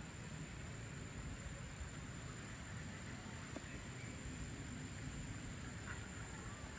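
Outdoor evening ambience: a steady low rumble with a few faint, scattered bird calls and a thin, steady high tone over it.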